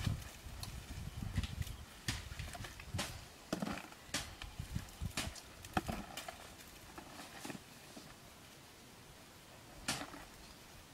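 Dry sticks and leaf litter crackling and snapping as someone moves about in brush, with a few low knocks early on; it goes quieter for a few seconds before one last snap near the end.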